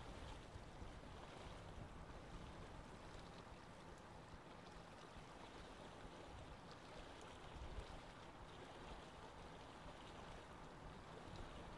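Faint, steady trickle of water from an aquarium filter.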